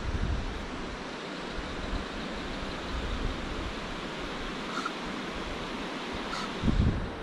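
Wind buffeting the microphone, with low rumbling gusts near the start and a stronger one near the end, over a steady hiss of outdoor night air. Two faint short chirps sound in the second half.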